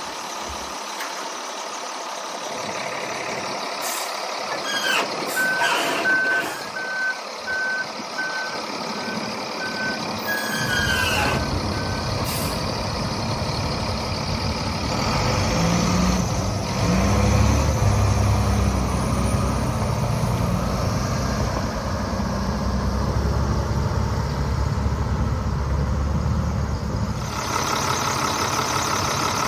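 Volvo A25D articulated dump truck's diesel engine running while its dump body is lowered. Engine sound grows heavier about a third of the way in. A backup alarm beeps steadily for several seconds before that, and near the end the engine is heard close up at the open engine bay, brighter and louder.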